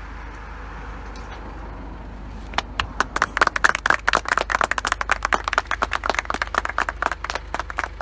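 A small group of people clapping their hands, starting about two and a half seconds in and carrying on as quick, uneven applause: onlookers applauding a dog just pulled out of a manhole.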